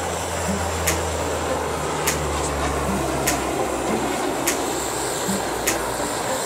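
Two gas torches hissing steadily as their flames play on a glass jar. Background music runs underneath, with a sharp beat about every 1.2 seconds and a low bass line.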